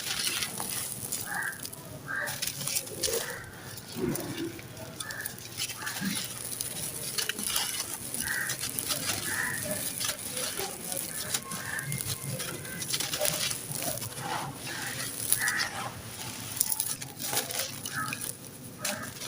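Dry, dusty sand-cement chunks crumbling and crunching, with an irregular stream of gritty crackles and small snaps.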